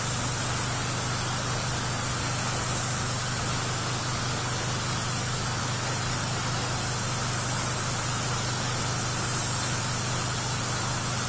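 Hobby airbrush spray gun hissing steadily as it sprays a very thin coat of Mirror in a Can silvering paint, with a steady low hum from the small airbrush compressor underneath.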